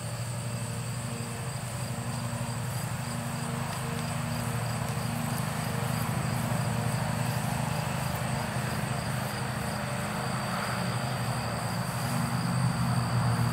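Steady low hum with a constant thin, high-pitched whine above it, growing a little louder near the end.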